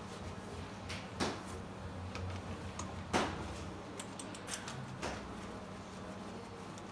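A few light clicks and knocks from tools being handled on a bare engine between compression-test readings, over a low steady hum. The three clearest knocks come about two seconds apart.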